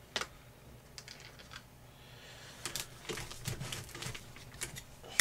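Light clicks and taps from gloved hands handling the metal velocity stack clamped in a vise: a few separate ticks at first, then a busier run of taps in the second half.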